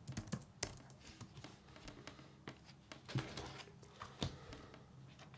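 Sparse, irregular clicks and taps of typing on a computer keyboard, with a few sharper keystrokes, over a faint steady room hum.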